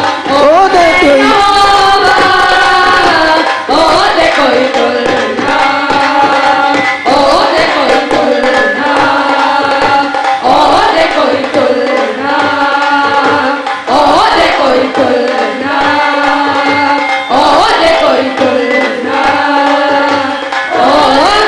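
Women singing a Christian worship song through a PA system, with a drum beat and hand clapping keeping time.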